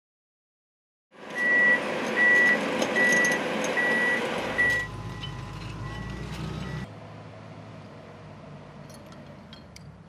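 Heavy tracked pile-driving rig running, its warning alarm sounding a regular high beep a little under a second apart. After a few seconds the beeping and engine sound drop to a quieter steady machine and site noise, with a few light metallic clinks near the end.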